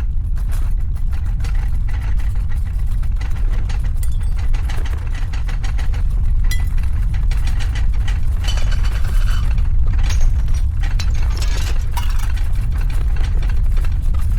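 Earthquake sound effect: a continuous deep rumble with rattling and clattering on top, which grows busier and harsher about halfway through.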